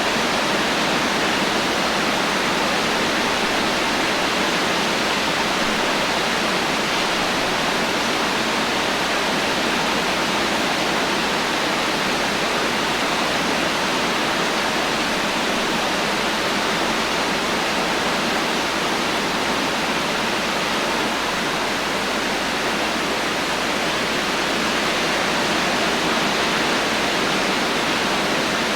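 Heavy rain falling in a steady, even wash, with no thunder and no single drops standing out.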